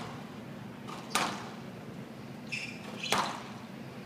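Squash ball being hit during a rally: two sharp cracks about two seconds apart, each echoing briefly, with a short squeak of court shoes on the floor between them.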